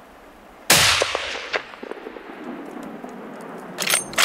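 A single hunting-rifle shot about three quarters of a second in, its report echoing and dying away over the next couple of seconds. Near the end, a few sharp metallic clicks.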